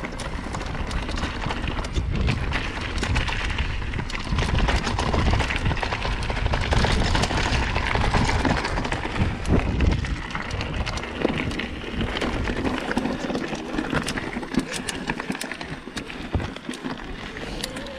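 Mountain bike riding fast down a trail: tyres running over the loose trail surface and the bike rattling with many sharp clicks over bumps, over a low rumble of wind on the microphone.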